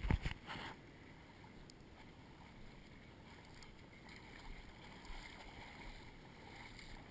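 Two or three sharp knocks close to the microphone at the very start, then faint steady outdoor noise.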